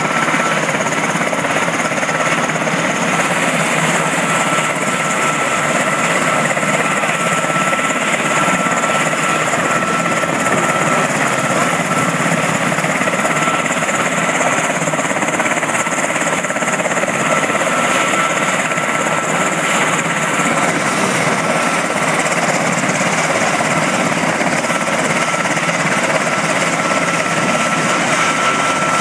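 US Coast Guard MH-60 Jayhawk helicopter running on the ground with its twin turbine engines. The sound is a steady, loud rush of engine and rotor noise with a constant high whine through it.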